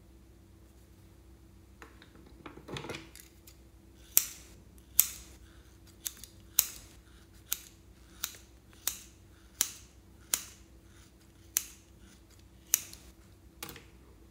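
Scissors snipping through a foam squishy toy: about a dozen crisp separate cuts, a little under one a second, starting a few seconds in after some brief handling noise.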